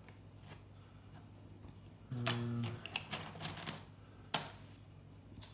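Hand tools clicking and clinking as they are picked through on a towel-covered table in a search for a smaller Phillips screwdriver, with one sharp knock about four seconds in. A brief low hum sounds a couple of seconds in.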